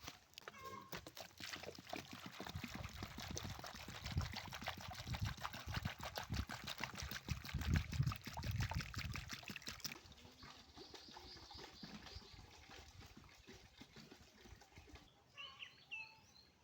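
Water pouring and splashing for about ten seconds, then quieter, with a few short high chirps near the end.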